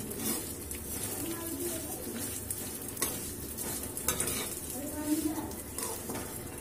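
Vermicelli frying in hot refined oil in a steel kadhai, sizzling steadily while a metal ladle stirs and scrapes it around the pan, with a few sharper scrapes about three and four seconds in. The sevai is being roasted until golden.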